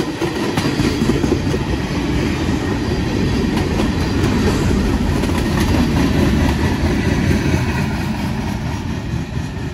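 Loaded freight cars (tank cars, a covered hopper and a boxcar) rolling past close by: a steady low rumble of steel wheels on rail with a dense clatter of clicks over the joints, easing off a little near the end as the last cars go by.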